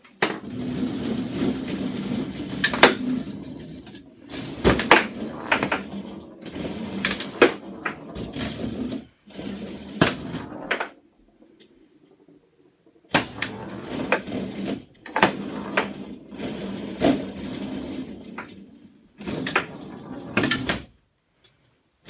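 Foosball table in play: rods rattling and sliding in their bearings while the plastic men knock the ball, with sharp clacks of the ball against the men and the table walls. The play stops for a couple of seconds near the middle and again just before the end.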